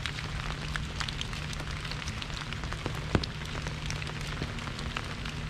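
Rain falling on an umbrella overhead: many drops strike at irregular intervals, and one heavier drop hits about three seconds in.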